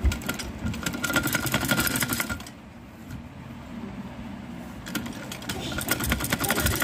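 Sewing machine stitching a seam in two quick runs of rapid, even needle clatter, with a pause of about two and a half seconds in between.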